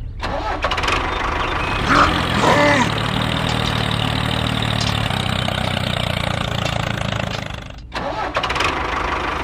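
Small engine of a DIY mini tractor starts abruptly and runs steadily. It briefly cuts out about eight seconds in, then picks up again.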